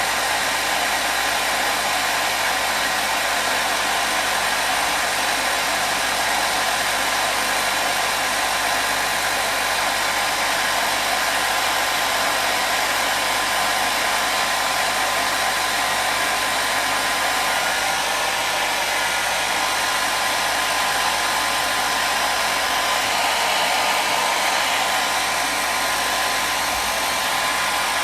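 Electric hair dryer running steadily: a constant rushing whoosh of blown air with a faint motor hum, unchanging throughout.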